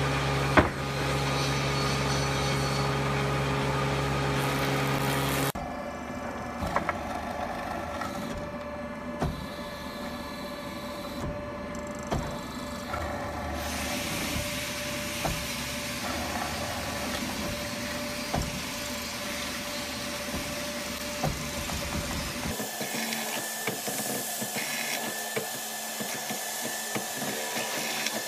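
Woodworking machinery running in a wood shop: a steady mechanical hum with scattered clicks and knocks of wood. The sound changes abruptly twice, about five seconds in and again a little past twenty seconds.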